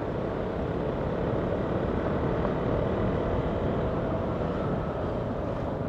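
Motorcycle riding along in traffic: a steady mix of engine and road noise picked up by a bike-mounted action camera, a little louder in the middle.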